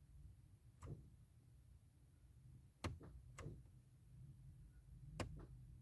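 Ford Mondeo Mk4 failing to start: sharp clicks as the key is tried, some in quick pairs, with no cranking and no engine firing.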